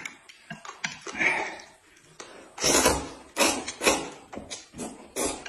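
Noodles being slurped, in several short noisy sucks about a second apart, with chewing and mouth sounds between them.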